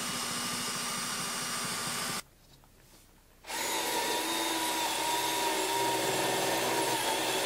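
Steady whirring machine noise with a low hum. Just after two seconds in it drops out for about a second, then a louder whir with a high steady tone resumes.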